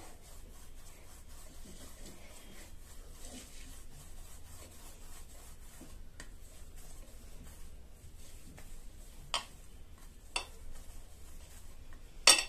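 Faint rubbing of hands kneading and rolling mawa (khoya) dough against a ceramic plate, to soften it. A few sharp clicks are heard, the loudest near the end.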